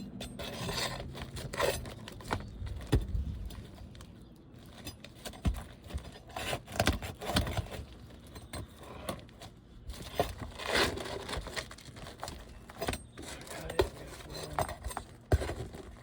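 Flat bar and flat paint scraper working under asphalt roof shingles to pry a roofing nail straight out: irregular metallic scrapes, clicks and knocks.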